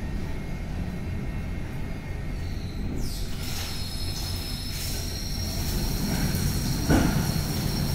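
Tammermatic T700 rollover car wash gantry running its drying-aid and rinse stage: a steady low mechanical rumble, with a high whine that sets in about three seconds in, dips in pitch and then holds steady. A short knock comes near the end.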